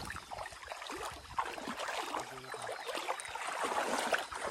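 Legs and feet wading through shallow river water, with irregular sloshing and small splashes.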